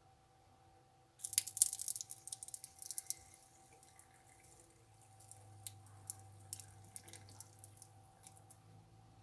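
Water splashing for about two seconds, then scattered single drips that thin out towards the end.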